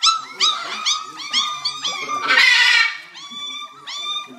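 Puppies squealing and whimpering in a steady string of short, high, arching cries, several a second and overlapping. About two seconds in comes a brief, louder burst of hissing noise.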